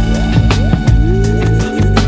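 Background music with a beat: regular drum hits under held notes and several rising, sliding notes.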